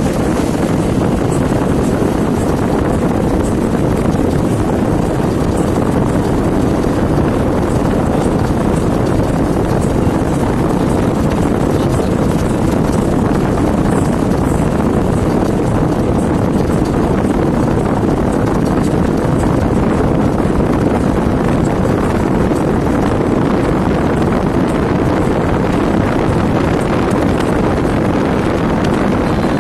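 Steady rush of wind and road noise from a moving vehicle, recorded at its open window.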